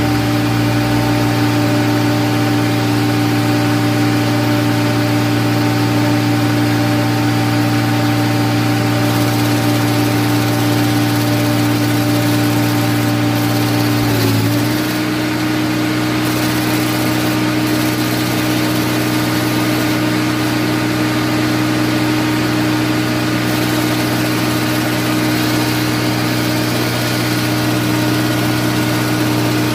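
Diesel engine of a John Deere 544K wheel loader running steadily at idle. About halfway through, its note steps up slightly in pitch and gets a little quieter, then holds steady.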